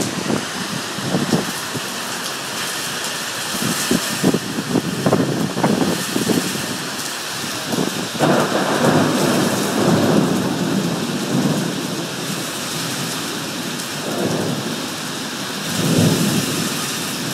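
Tornado-strength wind and heavy rain of an EF0 tornado lashing the balcony, the wind buffeting the microphone in rough surges. The gusts peak about halfway through and again near the end. The winds are estimated at 60 to 70 mph at least.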